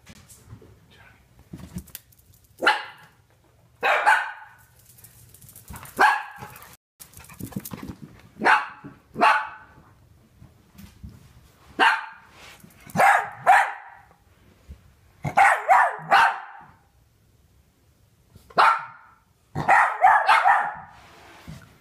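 Dachshund barking in alarm at fireworks: about a dozen sharp barks, some single and some in quick runs of two or three, with a longer run of barks near the end.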